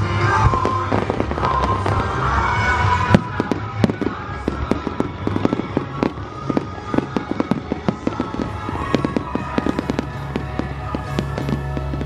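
Fireworks display: a sharp bang about three seconds in, then dense crackling as many small pops go off several times a second, with music underneath.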